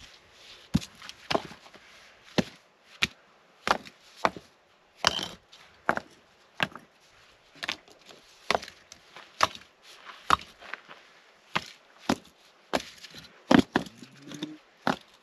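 Rocks knocking against one another as stones are set one by one into a fire ring: a run of sharp clacks at an uneven pace, roughly one or two a second.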